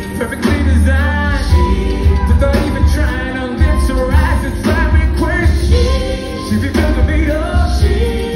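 Live band playing with a singer's voice over a heavy, pulsing bass beat.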